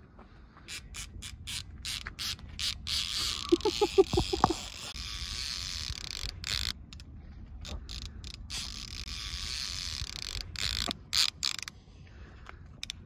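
Fishing reel being worked: a run of sharp clicks and ratcheting with a whirr in two stretches, and a quick burst of rattling pulses about four seconds in.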